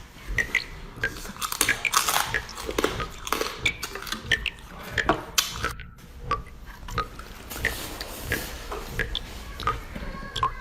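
A person eating close to the microphone: biting and chewing spicy seafood, with many short clicks and crunches.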